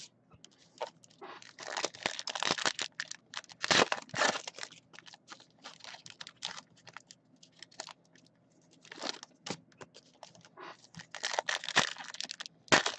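Plastic wrappers of trading-card packs crinkling and crackling in bursts as the packs are opened and handled by hand.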